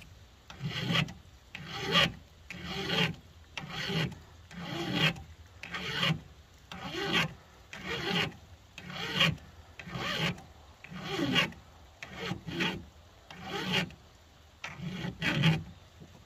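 A flat file rasping across chainsaw chain, filing down the depth gauges (rakers) in steady repeated strokes, about one a second, each stroke swelling and fading.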